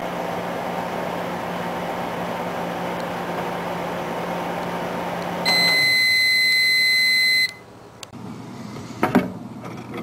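Microwave oven running with a steady hum until its timer runs out about five and a half seconds in, when the hum stops and it gives one long beep lasting about two seconds. Near the end, a sharp knock as the door is opened.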